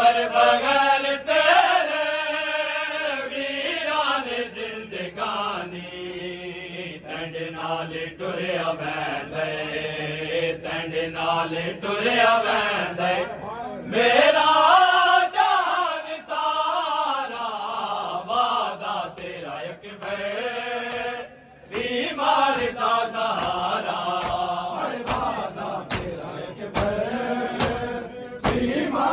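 Men chanting a noha, a Shia lament, in long wavering phrases. From about 25 s in, rhythmic chest-beating (matam) slaps from a crowd join the chant, a little over one slap a second.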